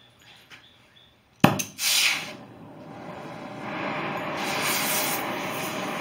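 Gas welding torch being lit: a sharp pop about a second and a half in, a brief burst of hiss, then a steady hiss that builds as the flame is turned up from a smoky yellow flare to a blue cone.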